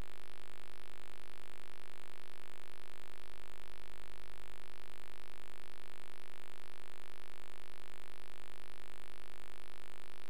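A steady electrical hum, a buzz with many evenly spaced overtones, over a faint hiss.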